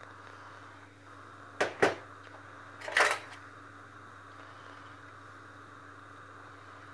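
Light knocks on a stainless steel sink drainboard as a mustard tube and a fork are handled and set down: two quick knocks about one and a half seconds in, then a louder clatter about three seconds in, over a steady background hum.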